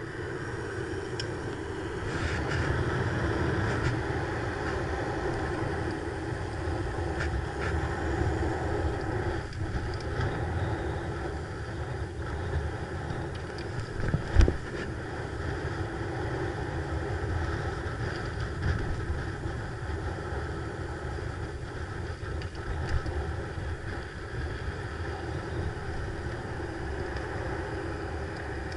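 Steady wind and road rumble on an action camera's microphone during a bicycle ride along a paved street, with a single loud thump about halfway through.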